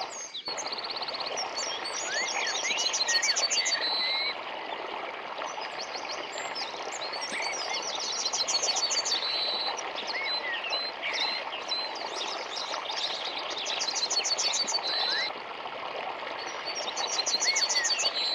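Small forest stream running steadily, with songbirds singing over it: one bird repeats a high, fast trilled song every few seconds while others give short rising chirps. The sound drops out for a moment right at the start.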